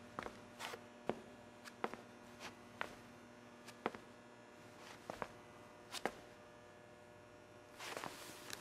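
Slow, faint footsteps on a hard floor, single sharp steps spaced irregularly about half a second to a second apart, over a steady low electrical hum. Near the end a brief rustling comes in.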